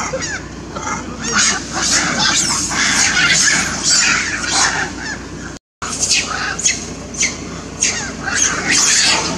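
Long-tailed macaques giving a rapid string of short, high, shrill calls, one after another, with a brief silent gap just past halfway.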